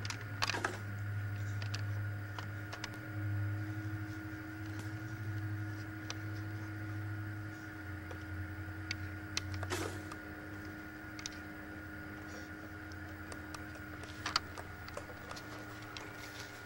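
A steady low mechanical hum with faint steady higher tones, broken by a few sharp clicks of plastic toy pieces being handled.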